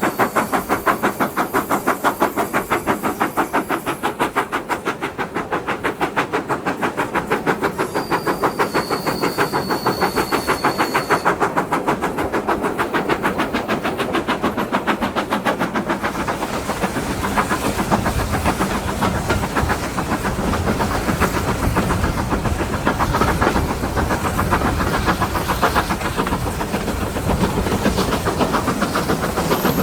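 Steam locomotive No. 9351, a GWR-style 2-6-0, working hard, its exhaust beat coming fast and even, with wheels running on the rails. About halfway through the beat becomes less distinct and a deeper rumble comes up. A short thin high tone sounds about a third of the way in.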